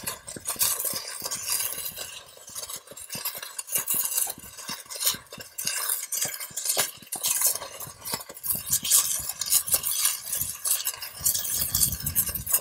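BreachPen LTE thermal breaching rod burning as it cuts through a steel chain link, spitting sparks with a dense, irregular crackle.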